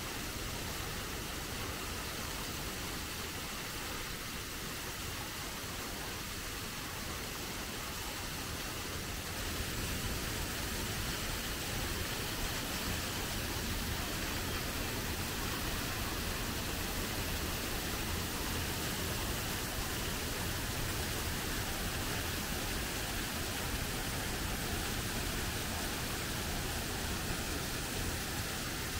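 Waterfall's steady rush of falling water, a little louder from about ten seconds in.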